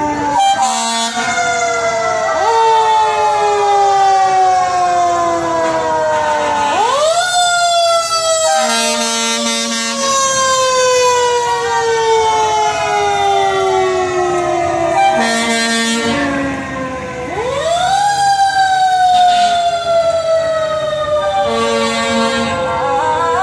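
Fire engine siren repeatedly winding up quickly and falling away slowly, with about three short air horn blasts from the truck.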